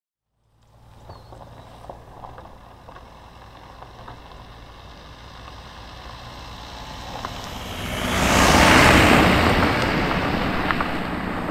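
Fiat Panda driving past close by on a dirt road: engine hum and tyre noise on the gravel build slowly, peak about eight to nine seconds in as the car passes, then ease off as it pulls away.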